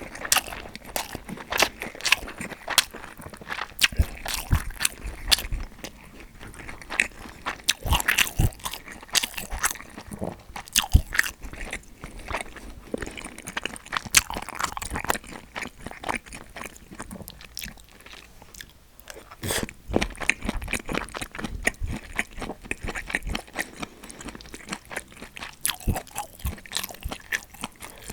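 A person eating right at a clip-on microphone: steady close-up chewing and biting, with many sharp wet clicks and smacks in an irregular run throughout.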